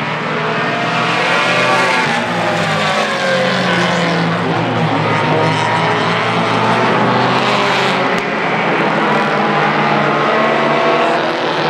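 A pack of small compact tuner race cars running hard around a short oval track. Several engines sound at once, their pitches rising and falling as the drivers accelerate and lift through the turns.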